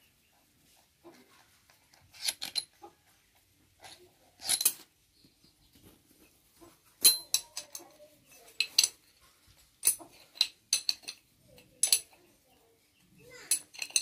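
Irregular metallic clinks and taps, some with a brief ring, as steel parts and hand tools are handled on a tractor differential case and crown wheel; the loudest come about seven seconds in and near the end.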